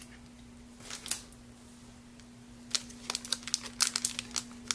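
Shiny trading-card booster-pack wrapper crinkling in gloved hands, with a run of quick, sharp crackles starting a little past halfway after a quiet opening.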